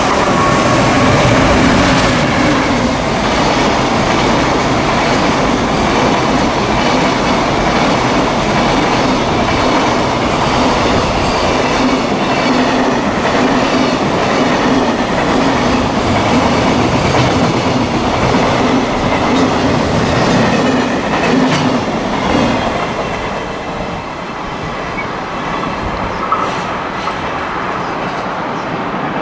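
High-speed JR Freight train, an EF510 electric locomotive hauling 21 Koki 100-series container wagons, rolling past with the wagons' wheels clattering over the rail joints. The sound drops off somewhat about 22 seconds in.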